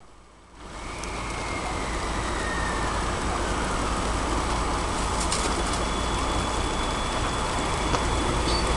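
E351-series electric limited express starting to pull out of the station: a steady rumble and hum that comes up about half a second in, with a faint whine that slides down in pitch over the next few seconds and a thin high tone later on.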